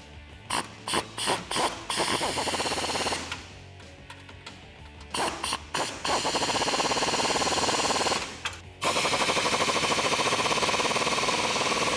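Cordless impact wrench running bolts in and tightening the nuts on a truck's side-step brackets. It gives a few short blips, then long runs of rapid hammering, with background music underneath.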